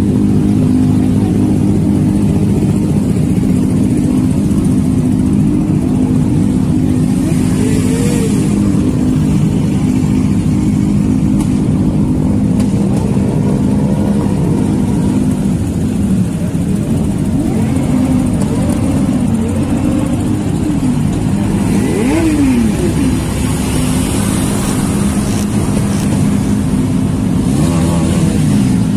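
Several motorcycle engines idling together, with throttles blipped now and then so that engine pitch rises and falls a few times, most often in the second half.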